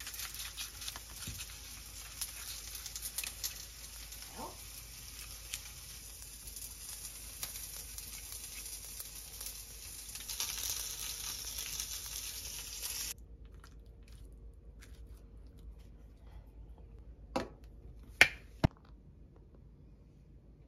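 Small clicks and rustles of food and paper cups being arranged in a stainless steel lunch box, over a steady hiss that cuts off about two-thirds of the way through. A few sharp taps come near the end.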